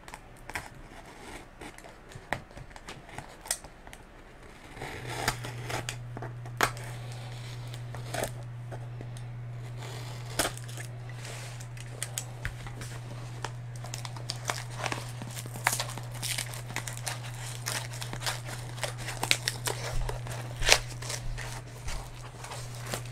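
A small cardboard box being cut open: scattered scrapes, clicks and crinkles of a small blade slitting the packing tape and cardboard flaps being worked loose. A steady low hum starts about five seconds in and runs on underneath.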